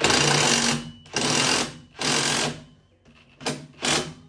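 Cordless impact driver hammering as it drives a screw, in three bursts of about half a second to a second each, then two short blips near the end.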